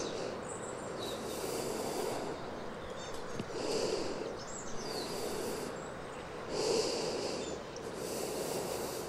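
A woman breathing slowly and audibly in and out, about three full breaths, as she rests and catches her breath after holding a backbend.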